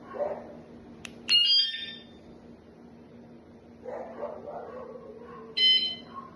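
wsdcam wireless vibration-sensor bike alarm giving two short, loud electronic chirps, about four seconds apart.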